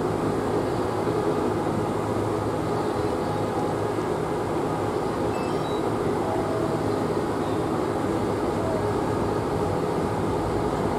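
Steady low rumble and hum of heavy machinery, with several steady low tones and no change in level.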